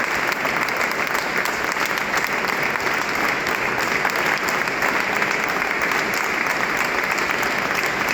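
Audience applauding steadily: a dense, even clatter of many hands clapping, with no music.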